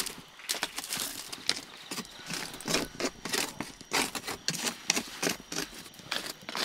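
Burning sticks in an open wood fire being poked and shifted with a stick: irregular wooden knocks and scrapes mixed with the fire's crackling.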